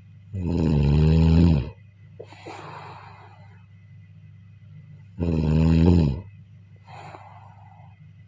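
A person snoring in a slow rhythm: two loud, rattling snores on the breath in, about five seconds apart, each followed by a softer breath out.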